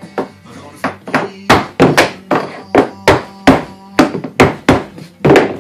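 A mallet knocking on the PVC pipe frame of a cat window perch: more than a dozen sharp knocks, about three a second, getting louder about a second and a half in. The pipe is being tapped to shake loose the plastic chips left from cutting it on a radial arm saw.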